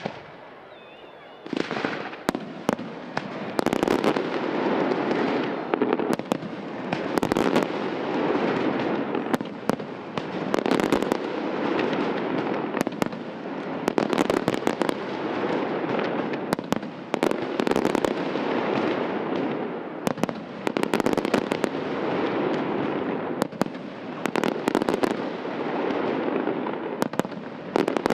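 Aerial fireworks display: after a quieter first second or so, a dense, continuous barrage of shell bursts sets in, thick with sharp cracks and crackling.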